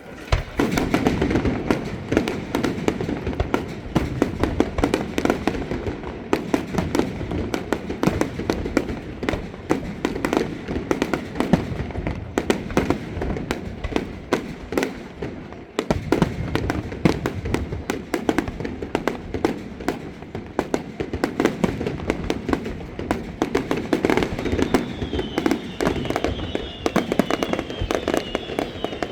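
Fireworks display: a dense, rapid run of crackles and bangs, easing briefly about sixteen seconds in and then resuming, with high falling whistles near the end.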